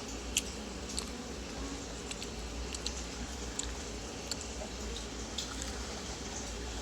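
Quiet eating sounds: scattered small clicks and taps, such as cutlery on a plate and chewing, over a steady low hum.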